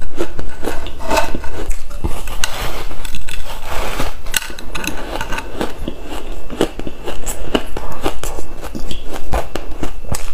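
Close, loud crunching of a block of purple-coloured packed ice being bitten and chewed: a dense, irregular run of sharp cracks and crunches.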